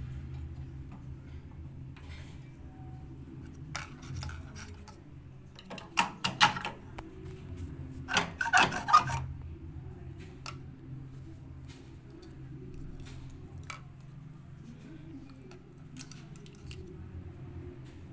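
Metal tools and parts being handled during a repair: scattered clinks and clatters, with two busier bursts of rattling a little after the middle, over a steady low hum.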